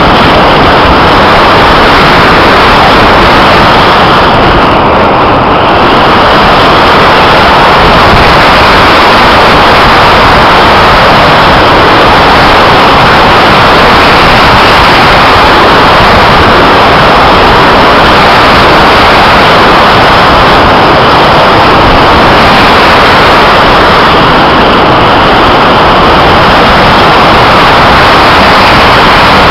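Loud, steady rush of airflow over the onboard camera's microphone of an RC slope glider in flight, with no motor tone in it. The rush eases slightly about five seconds in.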